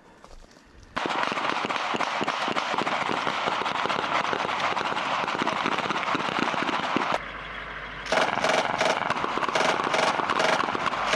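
Rapid automatic gunfire that starts suddenly about a second in. It eases briefly a little past the middle, then resumes with loud, rapid shots.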